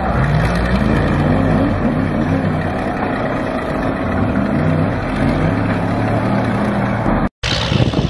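Engine of an old crawler bulldozer working hard under a heavy pulling load, its pitch rising and falling. The sound breaks off for an instant near the end, then engine noise carries on.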